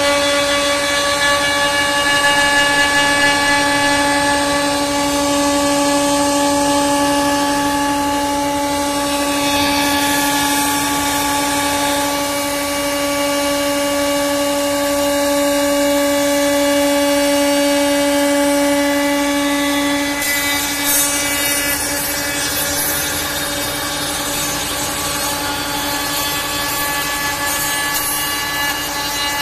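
CNC router spindle running with a steady high whine as a profile bit mills a raised-panel edge into a softwood board, with the rasping hiss of the cut. About two-thirds of the way through the whine's lowest tone fades and the hissy cutting noise comes forward.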